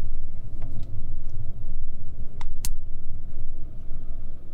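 BMW 328i with its 2.0-litre turbo four-cylinder driving at low speed, a steady low rumble of engine and road noise. Two short sharp ticks about two and a half seconds in.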